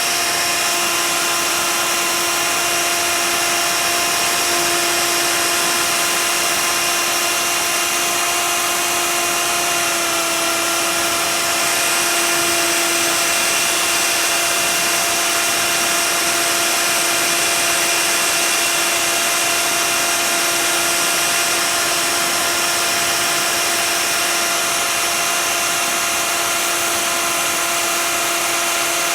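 A CNC router spindle runs at a constant speed with a steady high-pitched whine over a hiss, cutting a sheet of expanded PVC.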